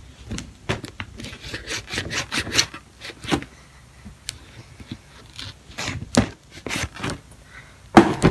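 Knife blade scraping and slicing through the tape and cardboard of a box, a run of short scratchy strokes and clicks.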